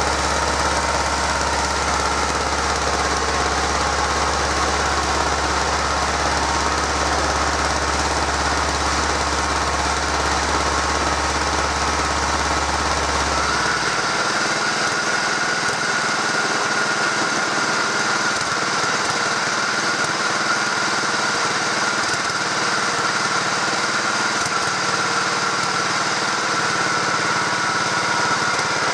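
The engine of a 1968 Stothert and Pitt W28 Mk1 vibrating roller running steadily on test, with the machine up on blocks. A deep low hum under the running drops away about halfway through.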